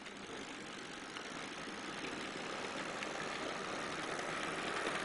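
Rivarossi HO-scale model of a Union Pacific 4-6-6-4 Challenger running along the track: the steady mechanical running noise of its electric motor and its wheels on the rails, slowly growing louder as it passes close by.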